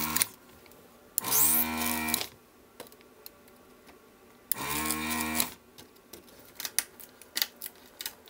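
Electric desoldering tool's vacuum pump sucking solder off the pins of a single-sided PCB, running in three bursts of about a second each: the end of one at the very start, another about a second in, and a third about four and a half seconds in. Each burst is a steady motor hum with an air hiss. Light ticks and taps of the tool on the board follow in the last few seconds.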